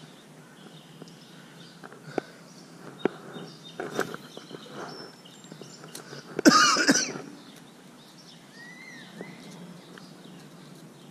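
A man coughs once, loudly, about six and a half seconds in. Before it, a few light clicks from rod and reel handling.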